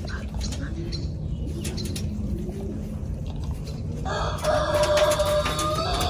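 Pigeons cooing in low, arching coos, with scattered clicks. About four seconds in, a loud, drawn-out bird call is held for about a second and a half.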